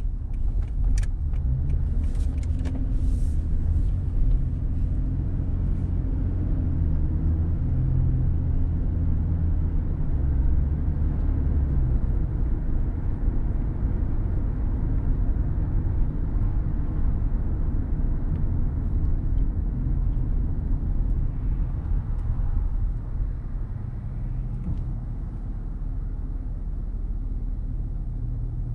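Car driving: steady low engine and road rumble, with a few sharp clicks in the first few seconds, easing slightly near the end.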